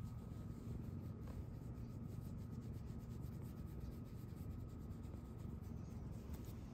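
Ginger tabby cat purring steadily while fingers scratch the fur of its cheek, a low even rumble with a soft rubbing of fur.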